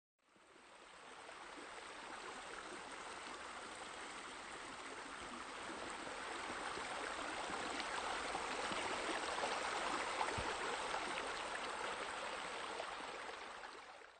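Steady splashing rush of falling water from a pool water feature, fading in over the first couple of seconds, growing louder toward the middle and dying away at the end.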